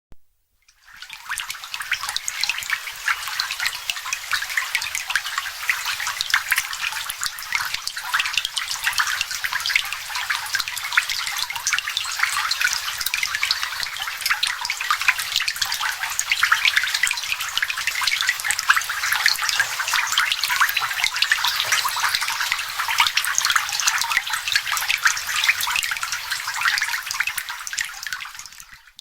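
Rain falling on a body of water: a dense, steady patter of countless small drops splashing on the surface, fading in at the start and out at the end.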